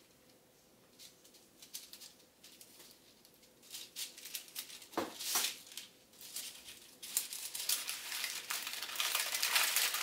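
Baking paper rustling and crinkling as hands fold a burrito, with a few soft handling taps at first. The rustling starts about four seconds in and becomes steady and denser for the last three seconds.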